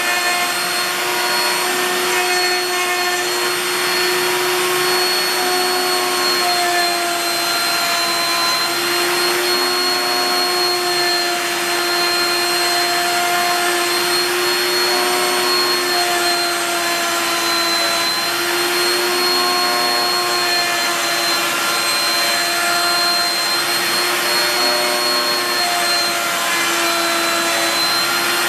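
Router motor on a home-built CNC router running steadily while its bit carves letters into a wooden board, a loud continuous whine whose pitch wavers slightly as the cut goes on.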